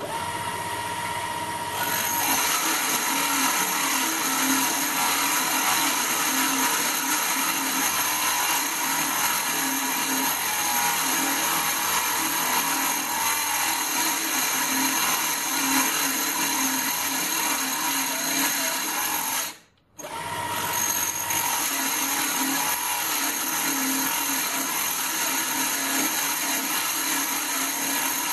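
Small 775 DC motor power spindle running steadily as its drill bit bores into a metal plate, powered at 16 volts from a variable supply. The sound breaks off for an instant about twenty seconds in and resumes at once.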